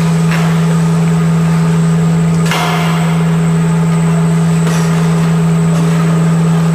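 Steady loud low drone of cheese-dairy processing machinery running, with a few short clatters, the loudest about two and a half seconds in.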